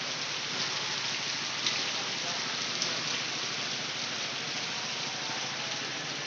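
Heavy rain falling: a steady, even hiss with a few faint drop ticks.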